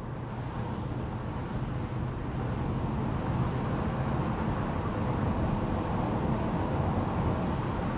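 Lexus SC430's V8 engine running with tyre and wind noise while driving with the roof down, a steady low rumble that grows gradually louder.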